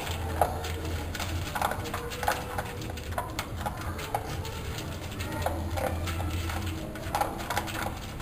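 A pit bull terrier rummaging among stored plastic bottles and containers while searching out hidden food, making irregular small clicks and knocks.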